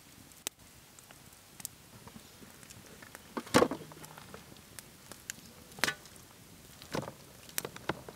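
Raw beef ribs being put one by one into a large metal basin: a few dull knocks against the metal, the louder ones about a second or two apart, with small handling clicks between.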